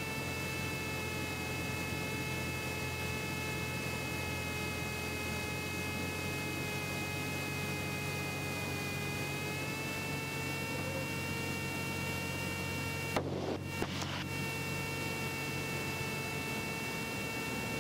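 Cessna 172's engine and propeller droning steadily inside the cabin, with a steady high hum over it. The pitch sags slightly about halfway through and comes back. Two short clicks come near the end.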